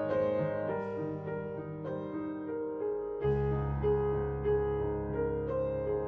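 Background music: a gentle piano melody over held lower notes, with a deeper bass note coming in about three seconds in.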